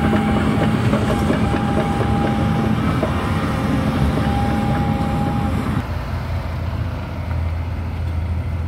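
Heavy diesel mining machinery running: a large Volvo EC950E excavator working beside dump trucks, a steady hum with a high whine over it. About six seconds in the sound cuts abruptly to a lower, steadier engine rumble of a heavy truck.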